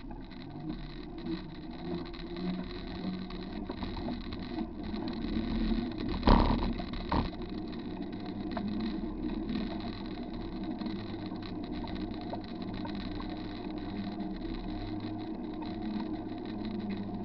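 Bicycle riding along a wet paved trail, heard through a bike-mounted camera: steady tyre and wind noise with frequent small rattling clicks, and one sharp jolt a little over six seconds in.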